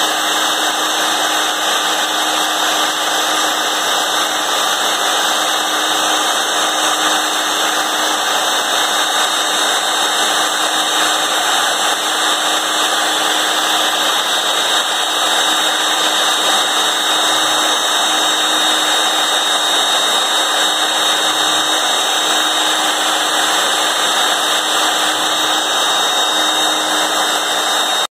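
Porter Cable 7518 router motor running at speed as the spindle of a CNC router, its V-bit engraving a design into a board: a steady high whine over a continuous rushing noise.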